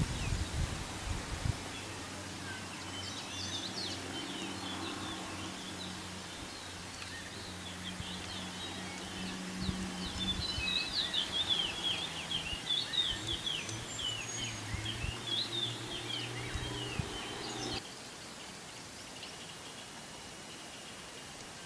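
Outdoor ambience of many small birds chirping and twittering in quick, short notes, thickest in the middle, over a low steady hum. Near the end the sound cuts suddenly to a quieter background with a faint steady high whine.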